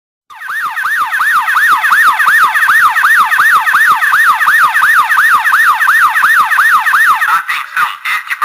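Electronic alarm siren of a panic-button security kit starts suddenly and wails in fast repeating up-and-down sweeps, about three a second. Near the end it changes to a rougher, choppier sound.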